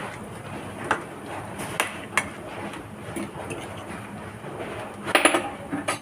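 A metal utensil or lid clinking against a cooking pot a few times over a steady hiss: once about a second in, twice around two seconds, and a quick cluster near the end.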